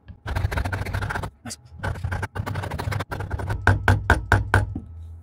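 Hammer tapping a forming punch to shape sheet metal held in a vise: two runs of rapid taps, then about five separate strikes at roughly four a second that stop shortly before the end.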